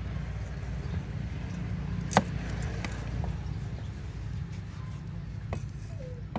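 A few sharp knocks of a steel cleaver against a wooden chopping board while garlic is peeled, the loudest about two seconds in, over a steady low rumble.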